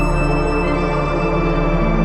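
Ambient background music of long, sustained layered tones.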